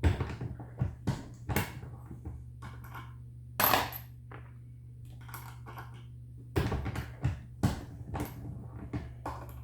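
Metallic clicks and clinks of loaded 38 Special cartridges being handled, in irregular clusters, over a steady low electrical hum.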